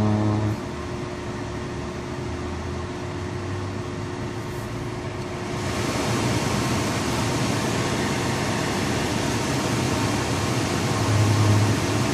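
A 2006 BMW X3's air-conditioning system heard from inside the cabin: a steady rush of air that gets louder about six seconds in. A low droning hum comes in at the start and again near the end. The hum is the intermittent A/C noise that comes with the system blowing hot air.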